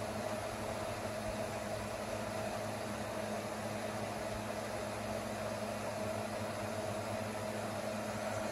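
Steady room tone: an even hiss with a low, constant hum, no distinct events.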